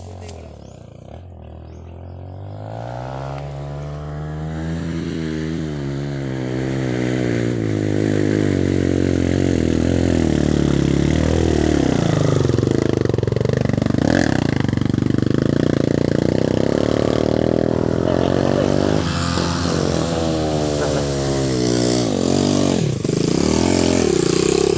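Dirt bike engine revving hard under load as it climbs a steep dirt trail. It grows louder over the first several seconds as it comes near, then stays loud, with the revs dropping and picking up again about halfway through and once more near the end.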